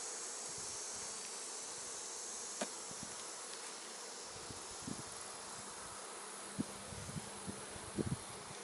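Honeybees buzzing steadily around an open hive during an inspection, with a few light knocks of handling. The sharpest knock comes about two and a half seconds in, and a small cluster comes near the end.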